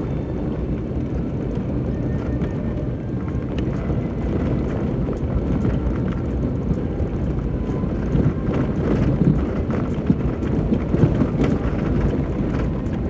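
4x4 vehicle driving slowly over a dirt off-road track, its engine running steadily at low revs. The body and suspension rattle and knock over bumps, more often and louder in the second half.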